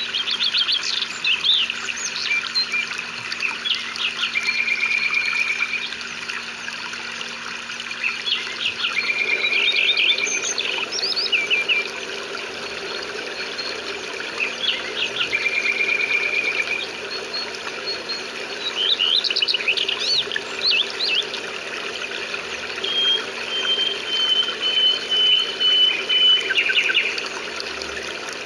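Songbirds chirping and trilling in repeated short phrases, with one long steady whistled note near the end, over an even hiss of rain.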